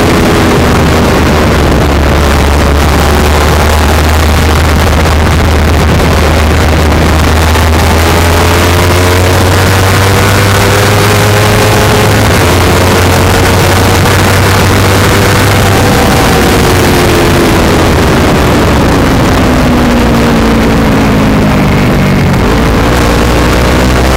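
Kawasaki Ninja 250 Fi parallel-twin engine heard through a Yoshimura carbon-fibre aftermarket exhaust while riding, over a steady rush of wind and road noise. The exhaust note climbs with engine speed through the middle, drops away toward the end, then picks up again.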